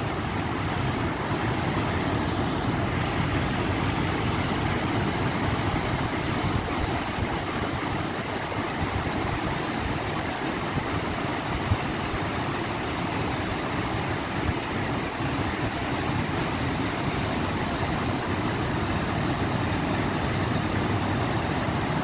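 Wide river waterfall and rapids rushing: a steady, deep wash of water noise.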